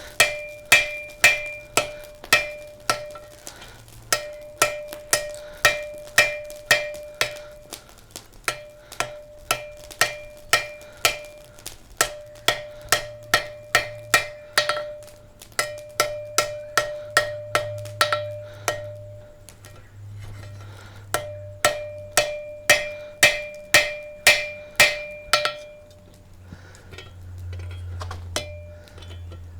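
Blacksmith's hammer striking hot steel on an anvil in runs of about six to eight blows, roughly three a second, with short pauses between runs. Each blow leaves the anvil ringing with a clear metallic tone.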